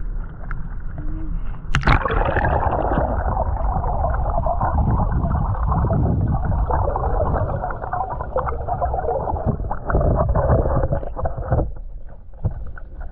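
A camera plunging into a river about two seconds in, then muffled underwater gurgling and rushing of the current as heard from below the surface. Near the end the rushing thins into scattered splashes as the camera bobs back up to the waterline.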